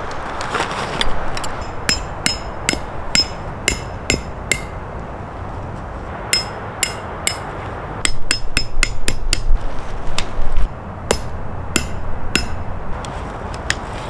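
Hammer blows striking metal with a sharp ring, about two a second, in several short runs, with a faster, louder flurry of blows about eight seconds in.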